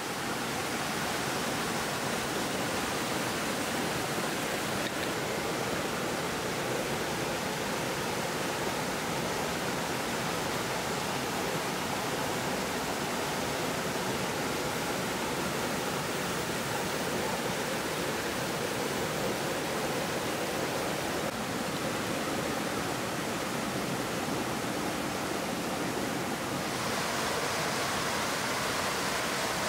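Stream water running steadily over rocks, an even wash of noise without breaks; its tone shifts a little near the end.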